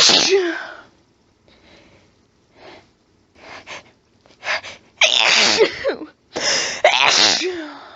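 A person sneezing in a fit: a harsh, throaty sneeze right at the start, then several short hitching breaths as the next one builds, then two more harsh sneezes close together in the second half.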